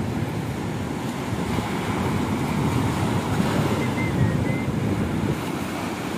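Surf washing up a sandy beach, a steady wash of waves with wind rumbling on the microphone.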